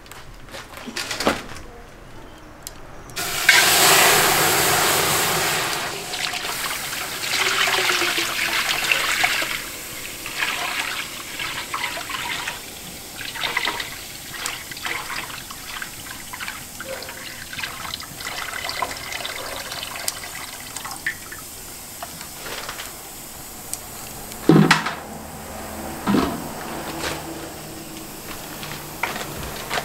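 Milk being poured into a large aluminium pan, in a few long pours, the first starting about three seconds in. Two sharp knocks come near the end.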